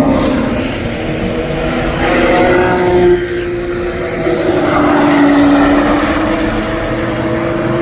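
Sports car engines passing along a race track, their pitch rising and falling as they go by. After a cut about three seconds in, a Chevrolet Corvette's V8 drives past.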